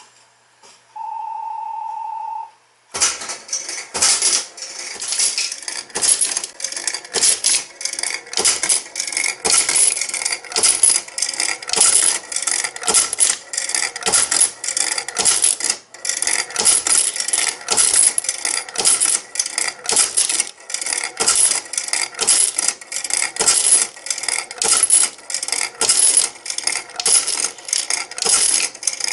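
A steady beep of about a second and a half, then the Bally Wulff FOXX slot machine paying out a big win: two-euro coins dropping into the payout tray and clattering onto the pile, several a second, without a break.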